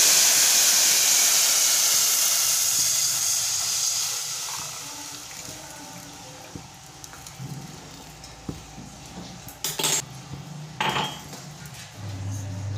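Lassi-and-gram-flour kadhi batter poured into hot oil with fried whole spices in a steel pot. The oil hisses loudly at first, then dies down over about five seconds as the liquid cools it. Two sharp knocks come near the end.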